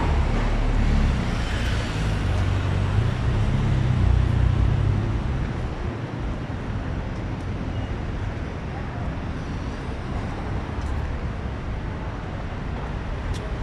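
Street traffic noise: a low rumble that is loudest in the first five seconds or so, then a steadier background of traffic.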